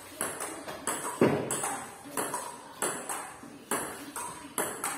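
Table tennis rally: the celluloid ball clicking off paddles and the tabletop in quick alternation, about two to three hits a second, each echoing in the bare room. One hit about a second in is louder and deeper than the rest.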